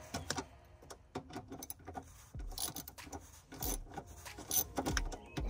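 Irregular small clicks and rubbing of hand tools on metal fittings under the car, as bolts are worked loose or tightened.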